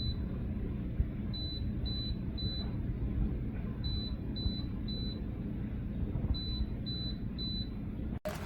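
Single-serve coffee maker's electronic beeper sounding short high beeps in groups of three, each group about two and a half seconds apart, over a steady low hum.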